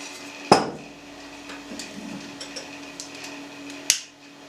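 A glass bottle set down with a knock on a wooden table about half a second in, then a sharp click near the end as a long utility lighter is sparked to light sambuca in a glass. A faint steady hum runs underneath.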